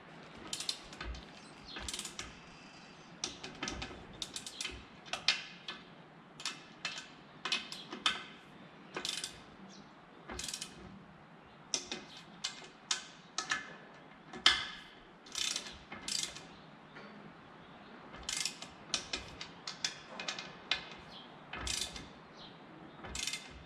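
Hand ratchet clicking in short irregular runs as the quarter-inch clamping bolts of a Warp Drive propeller hub are snugged up one by one.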